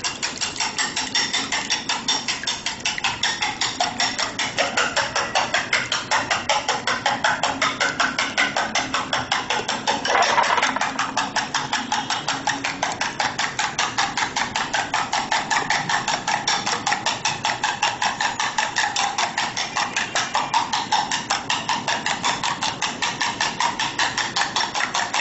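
Eggs being beaten with a metal spoon in a glass bowl: a steady, rapid clinking of the spoon against the glass, several strokes a second, mixed with the wet slap of the egg.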